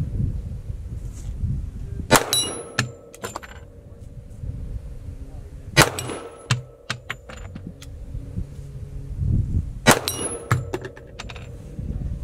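Three .45 ACP pistol shots about four seconds apart, each followed by the metallic clang and ring of a hanging steel target being hit.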